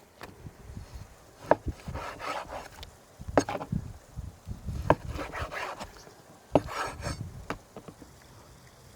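Knife slicing raw lamb meat: rasping cutting strokes broken by four sharp knocks a second or two apart.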